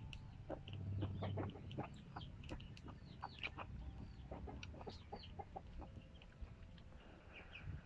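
Chickens clucking in short, scattered notes, over soft eating sounds of chewing and a spoon.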